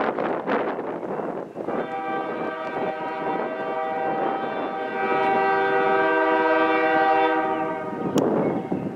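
Diesel locomotive air horn sounding a chord of several notes, held for about six seconds from about two seconds in and louder for its second half, then cutting off sharply near the end. Gusty rushing noise comes before it and returns after it.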